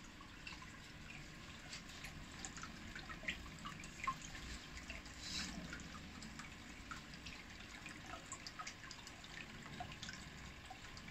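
Aquarium water bubbling faintly: air from an air pump's sponge filters and air stones breaking at the water surface, with a scatter of small drips and plinks.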